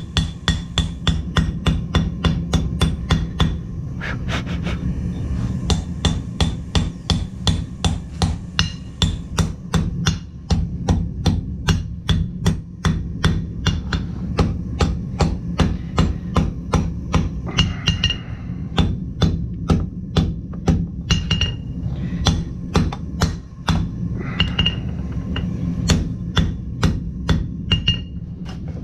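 Blacksmith's hand hammer striking steel on an anvil in a steady rhythm of about three blows a second, each blow ringing, with a few brief pauses between runs. A steady low hum runs underneath.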